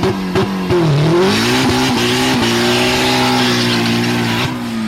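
Turbocharged Chevrolet Cobalt SS engine revving hard. It runs choppy with sharp pops for about a second, then climbs and holds high with a loud hiss over it, and drops away near the end.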